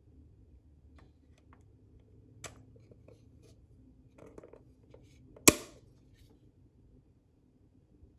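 Small plastic clicks and handling as a clear lens is fitted onto a Yanmar tachometer's face, with one sharp, much louder snap about five and a half seconds in.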